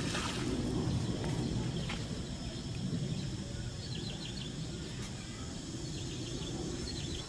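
Outdoor background noise with a steady low rumble, and a few short high bird chirps about four seconds in and again near the end.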